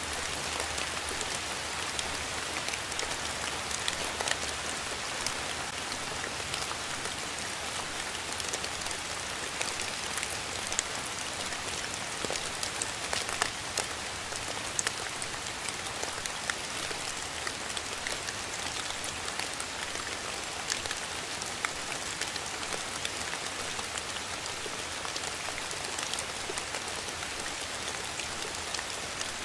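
Steady rain falling: an even hiss of rainfall with many individual drops striking sharply here and there throughout.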